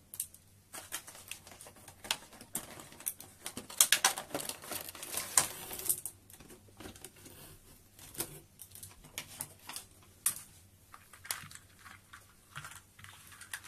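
Hard plastic toy train track pieces clicking, tapping and knocking against each other and the polystyrene packing tray as they are lifted out and set down in a pile. The clatter is busiest in the first half and sparser after.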